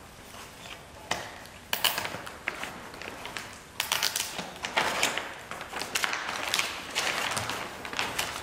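Rustling and crinkling of an ultralight's fabric tail skin being handled, with small clicks as zip ties are worked through its sleeve around the frame tube. The noise comes in irregular bursts and gets busier from about four seconds in.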